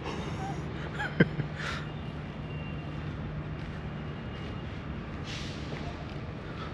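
Steady hum of urban traffic with a low engine drone through the first few seconds, a short sharp sound about a second in, and a faint high steady tone in the middle.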